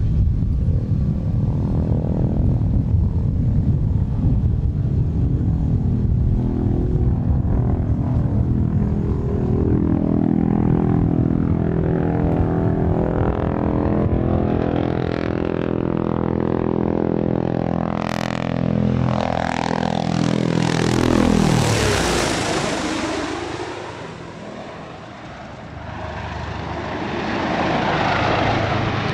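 Boeing-Sikorsky RAH-66 Comanche helicopter in flight, its rotor and twin turboshaft engines making a steady drone. About eighteen seconds in it passes by, the pitch sliding down, followed by a rushing sound that fades and then swells again near the end.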